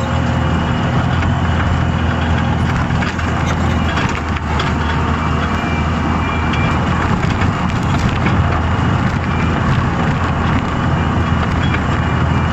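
Skid steer loader's engine running steadily, with scattered clanks and knocks.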